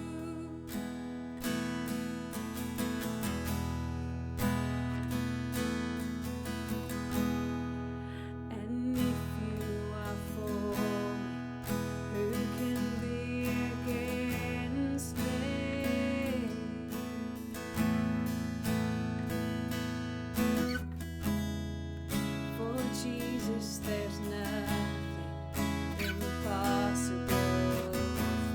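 Music carried by a strummed acoustic guitar, with chords changing every few seconds.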